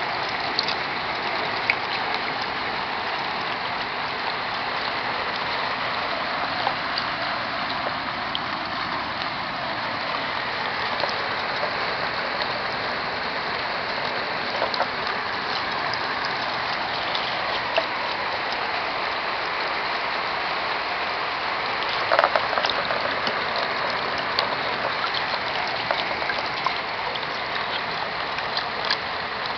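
Steady rainfall, with many sharp ticks of drops hitting nearby surfaces and a louder cluster of taps about twenty seconds in.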